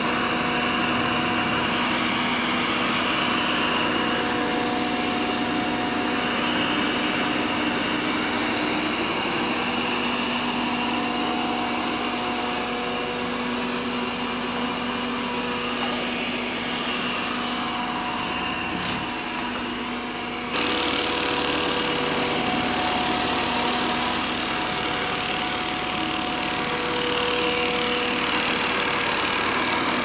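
Ecovacs DEEBOT N8+ robot vacuum running as it cleans a hard floor with its mopping plate fitted: a steady motor whir with a few held tones that come and go. About two-thirds of the way through, the sound shifts abruptly.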